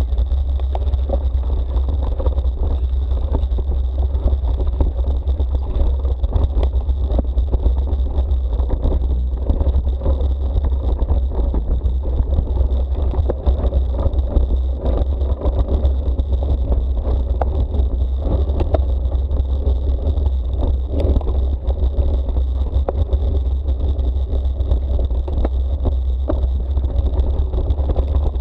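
Wind buffeting the microphone of a bike-mounted action camera while riding a mountain bike: a loud, steady low rumble, with tyre noise on the road and frequent small clicks and rattles from the bike.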